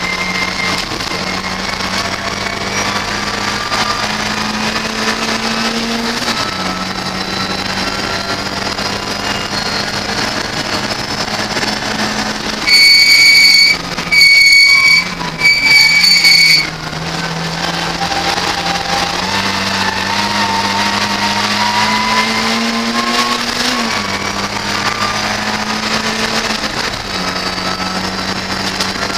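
Ford Fiesta race car engine heard from inside the cabin, its pitch climbing under acceleration and dropping sharply at each upshift, and falling away under braking about halfway through. Over this, three loud, steady high-pitched electronic tones sound in quick succession, each about a second long.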